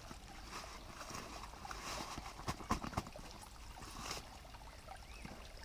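Fabric rustling and scattered clicks and knocks as a Solo Stove cook pot is handled and drawn out of its cloth pouch, busiest about two to three seconds in, with one more knock about four seconds in. A stream trickles steadily underneath.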